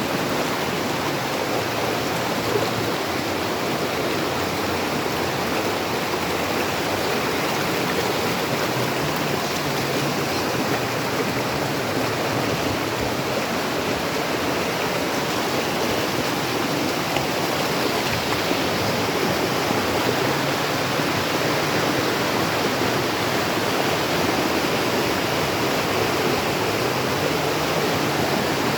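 Waterfall water falling and rushing in a steady, even roar of white water.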